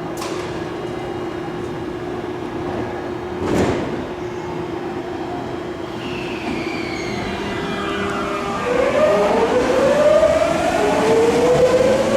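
Tokyu 9000 series train's Hitachi GTO-VVVF traction inverter whining as the train pulls away. A steady hum and a sharp knock about three and a half seconds in come first. After about six seconds several inverter tones slide down and then up in pitch, growing louder as the train accelerates.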